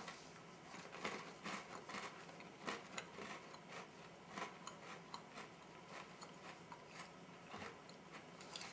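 A person biting into and chewing a very crunchy MRE creamsicle cookie. A sharp bite comes at the start, followed by faint, irregular crunching.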